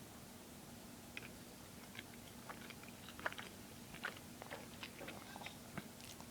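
A person chewing a bacon burger close to the microphone: faint, irregular clicking and crunching mouth sounds, the sharpest about three seconds in.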